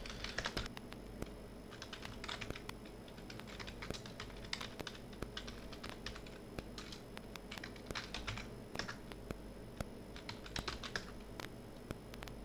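Computer keyboard typing: keystrokes in short, irregular bursts with brief pauses between them.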